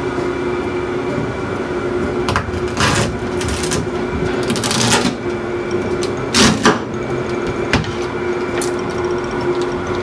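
Kitchen knife cutting through a pan-fried spring roll on a plastic cutting mat: a few crisp, crackling strokes as the blade saws through the toasted wrapper, then a sharp knock about six and a half seconds in as the blade meets the board. A steady fan hum runs underneath.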